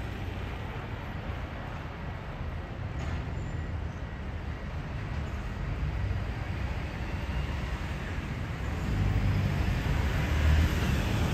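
Street traffic noise: a steady hum of road vehicles with a low rumble, growing a little louder in the last couple of seconds.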